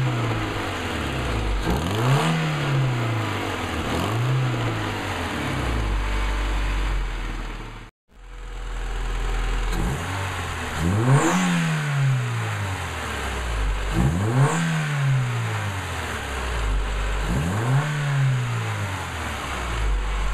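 Car engine revved in repeated blips, pitch rising and falling every two seconds or so, with its exhaust header cracked. After a brief cut it is revved three more times, about three seconds apart, now through new tubular headers, smooth with a nice purr.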